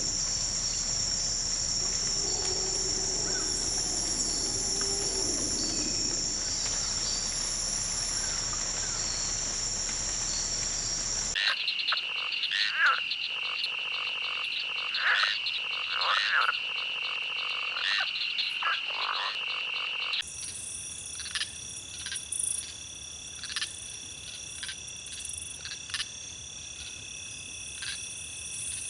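Chorus of insects in grass trilling steadily at a high pitch, with scattered short chirps and clicks over it. The chorus changes abruptly about 11 seconds in to a lower trill with louder chirps, and again about 20 seconds in to a higher, thinner trill.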